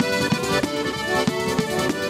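Piano accordion playing a fast pizzica melody in sustained chords, over the steady driving beat of a tamburello, the southern Italian frame drum with jingles.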